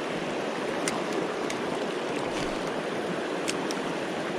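Shallow river current flowing steadily, with a few brief sharp clicks through it.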